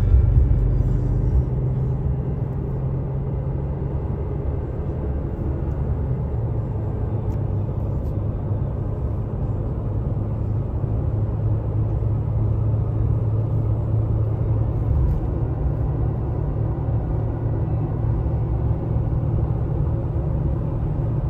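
Steady low road and drivetrain rumble inside the cab of a 2017 Toyota Tacoma pickup cruising at highway speed, about 60 mph.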